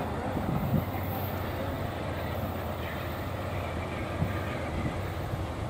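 Train passing, a steady rumble and rattle of cars rolling over the rails.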